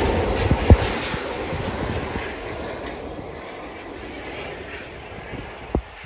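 Jet engines of an SAS Airbus A350 airliner on final approach, a broad rumble that fades steadily as the plane moves away toward the runway. Two short sharp thumps, one about a second in and one near the end.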